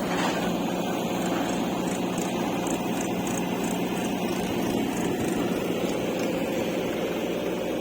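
Diesel engine of heavy earthmoving machinery running steadily, with a row of faint high ticks between about one and a half and three and a half seconds in.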